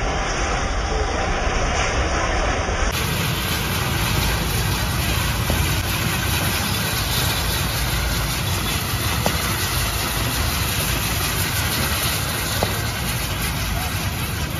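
Spinning firework wheel hissing and rushing steadily as it throws off sparks, with a few faint sharp cracks.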